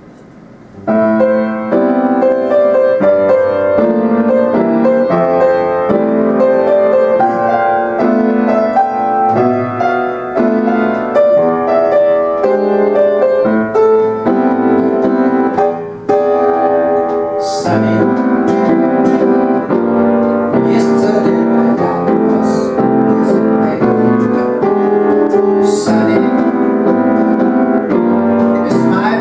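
Live piano playing jazz, starting about a second in, with a short break near the middle.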